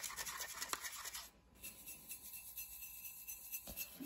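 Watercolour brush scrubbing quickly in a paint pan to load more paint, stopping about a second in. Fainter brushing follows as the paint is worked on a ceramic plate, with one light click near the end.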